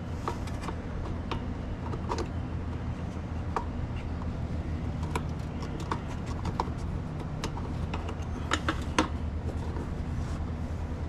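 Small irregular clicks and taps as a metal pick works at the plastic electric switch of a Suburban SW6DE RV water heater, prying it out of its mounting, over a steady low rumble. A quick cluster of sharper clicks comes about three-quarters of the way through.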